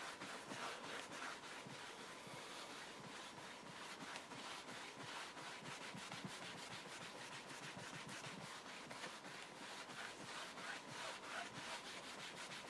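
Faint, quick back-and-forth rubbing of a cloth on a Tenite plastic TV screen cover, buffing polish off the surface with several strokes a second.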